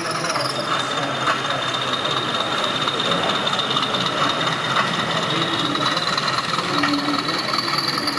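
00 gauge model locomotive running on a layout, a thin motor whine that slowly rises in pitch, over a steady background of hall chatter.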